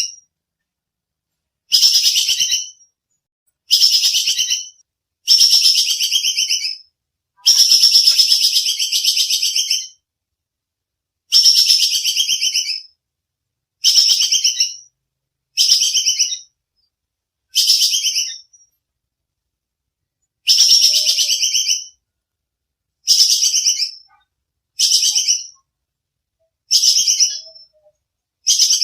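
Squirrel (bajing kekes) alarm chatter: about a dozen bursts of very fast, high chattering clicks, each lasting from half a second to two and a half seconds, separated by short silences.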